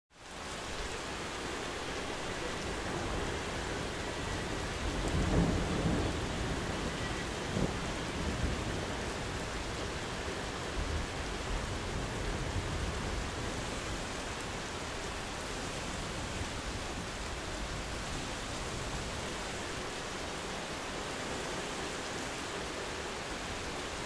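Steady medium-intensity rain hissing, with distant thunder rumbling low beneath it. The rain fades in at the start, the strongest rumble swells about five seconds in, and smaller rumbles follow a few seconds later.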